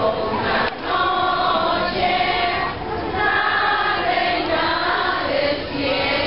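A crowd of people singing together in unison, a traditional Christmas posada song, in phrases of a few seconds with short breaths between them.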